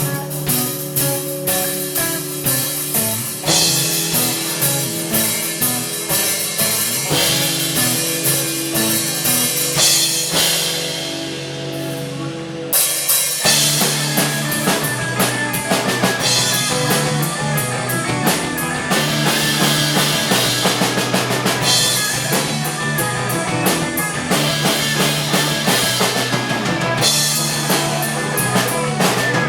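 A live rock band playing with drums and effects-laden guitar over a steady beat. About a third of the way in, the drums drop out and the high end fades for a moment, then the full band comes back in.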